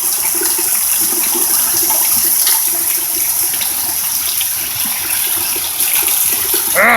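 Heavy rain pouring down: a steady, even hiss of rainfall.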